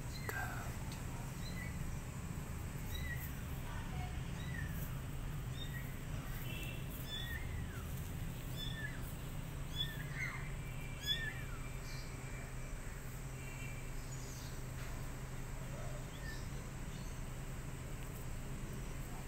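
Kittens mewing: a run of short, high calls repeated about every half second to second, thinning out after the first twelve seconds, over a steady low hum.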